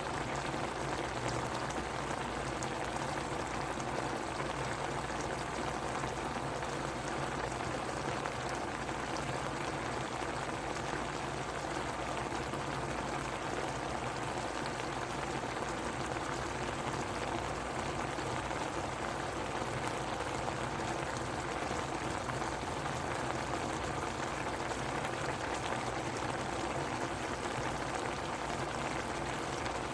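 A pot of Korean stew (jjigae) or soup boiling steadily, a continuous dense bubbling and popping.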